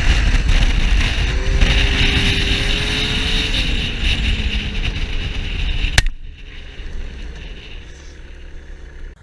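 Snowmobile engine running at speed, with rushing noise over it. About six seconds in it breaks off with a sharp click, leaving a quieter low rumble.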